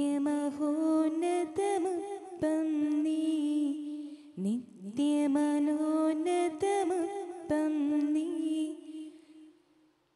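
A voice slowly singing a Malayalam Eucharistic hymn in long, drawn-out held notes with gliding pitch changes. The singing stops shortly before the end.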